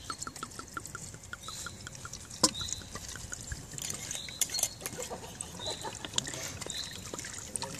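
White wine poured from a glass bottle into a metal cooking pot, trickling and splashing into the liquid already in it, with a fast run of small ticks for the first few seconds and one sharp click midway.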